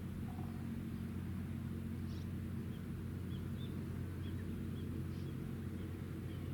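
Steady low drone of the engines of the JMSDF helicopter destroyer Kaga, holding an even pitch, with faint small-bird chirps over it.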